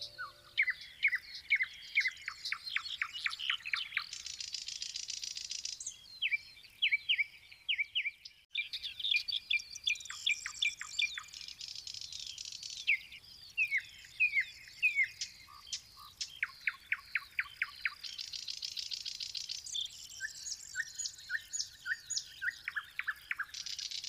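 Small songbirds singing: runs of quick, sharp, downward-sweeping chirps alternate with high, buzzy trills. There is a brief break about eight seconds in.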